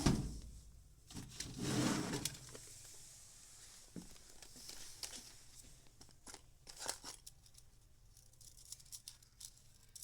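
Small plastic fidget toys being handled: a rough rustling, tearing-like burst about a second in, then scattered light clicks and taps.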